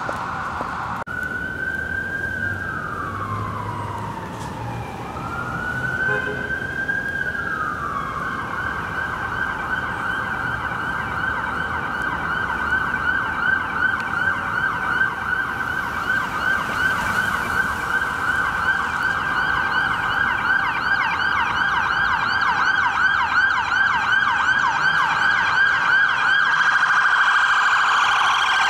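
Fire-rescue vehicle's electronic siren sounding, first as a slow wail that falls and rises, then switching to a fast yelp of several sweeps a second. It grows louder as the vehicle approaches.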